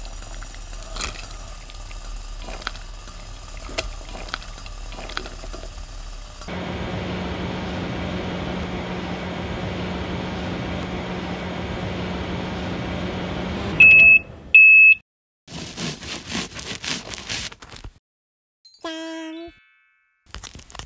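Water bubbling in a small pot with a few light metal clicks of tongs, then a steady oven hum with a low tone. Two short high beeps from an oven timer follow, then a brief crunchy scraping.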